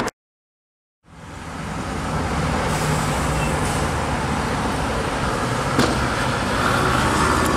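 Steady road traffic from passing cars, fading in after about a second of silence, with one sharp click about six seconds in.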